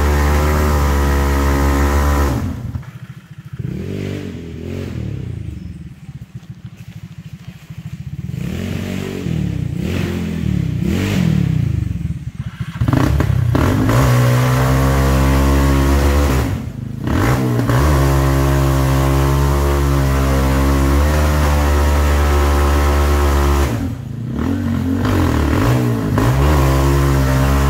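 Off-road go-kart's small engine running. For the first dozen seconds the revs fall and rise unevenly as the throttle comes off and on; after that the engine is held at high revs, loud and steady, with two brief dips.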